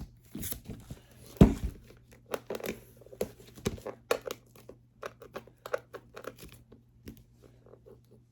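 Product packaging being handled and torn at while someone tries to open it: irregular crinkling, tearing and scraping, with one heavy thud about a second and a half in.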